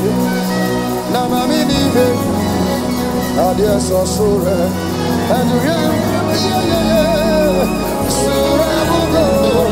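Live gospel worship band playing, with drums, bass guitar and keyboard, cymbal crashes about 4 and 8 seconds in, and a voice singing a wavering melody over it.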